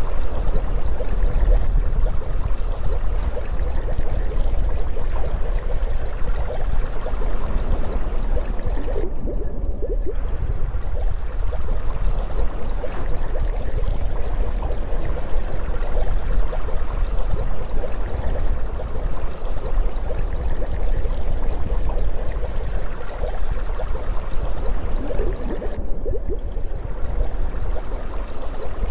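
Steady underwater ambience: a continuous watery rushing with a deep rumble beneath it. The higher hiss drops away briefly twice.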